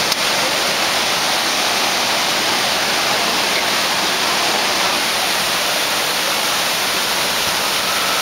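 Steady rushing water of an artificial surf-wave ride, a continuous sheet of pumped water pouring over the ride surface.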